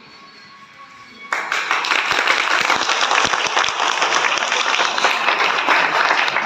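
A short lull, then an audience starts applauding just over a second in, with sustained clapping.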